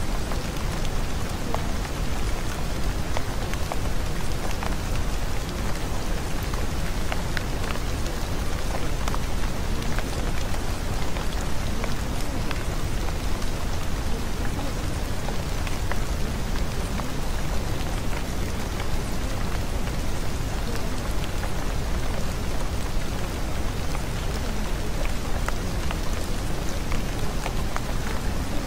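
Steady rain falling: an even hiss with many small drops ticking through it, holding at the same level throughout.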